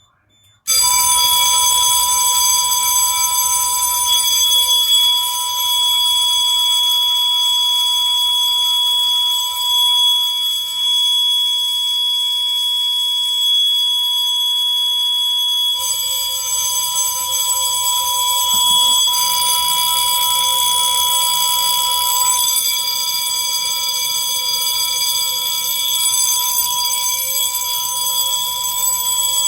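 Fire alarm bell and piezo sounder going off together, very loud, as the system goes into alarm on a duct detector test activation. It starts abruptly about a second in and then rings steadily without a break.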